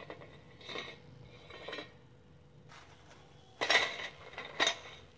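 Stainless steel wire strainer clinking against a steel bowl as freshly fried nacho chips are tipped in: two light clinks, then two louder clattering clinks near the end.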